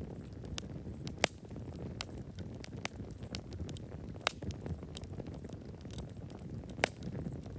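Wood fire burning: a steady low rumble of flames with scattered sharp crackles and pops of burning wood, three of them louder, about a second in, midway and near the end.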